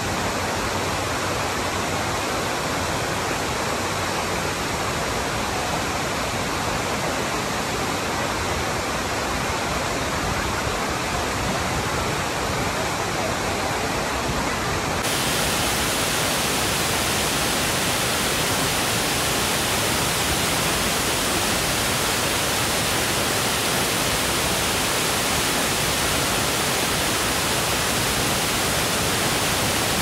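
Kapuzbaşı waterfall: a steady rush of falling water. About halfway through, the sound abruptly turns brighter and a little louder.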